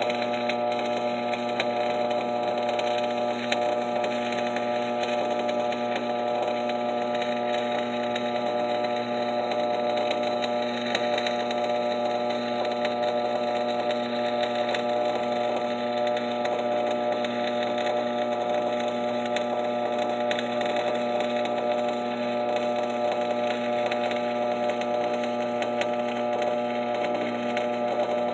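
Stick welding arc burning continuously: a 3/32" Lincoln 7018 electrode run at about 85 A on steel C-channel, crackling steadily with a constant electric buzz underneath.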